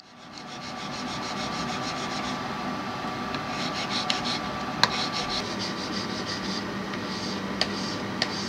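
Metal hand file rasping on a small platinum jewelry part in quick, even strokes, with a few sharp clicks in the second half.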